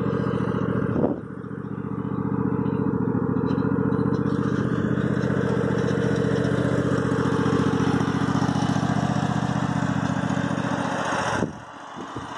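Husqvarna zero-turn mower's engine running steadily at low throttle. The level dips briefly about a second in and drops suddenly near the end.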